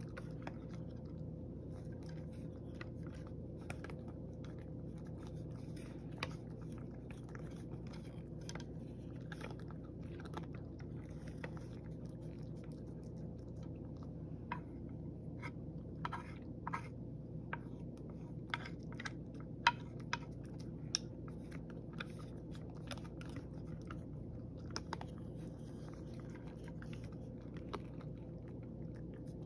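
A cat chewing and crunching its food from a wooden tray: many small irregular clicks, thickest around the middle, over a steady low hum.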